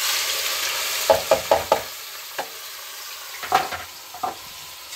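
Chopped onions dropped into hot refined oil in a kadhai: a sudden loud sizzle that eases after about two seconds and carries on frying steadily. A quick run of four knocks comes about a second in, with a few single knocks later.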